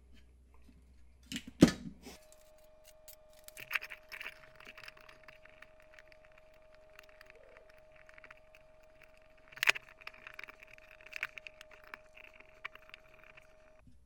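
Small parts and wiring being handled while an LCD display is fitted into a sheet-metal enclosure: light clicks, taps and rattles, with a sharp knock about two seconds in and another about ten seconds in. A faint steady tone runs underneath for most of it.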